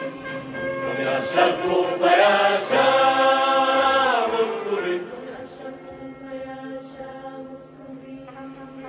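Background music between sung lines: long held voices, chant-like, over sustained instrument notes. It swells to its loudest in the middle, with the pitches sliding together near the peak, then thins to quieter held notes.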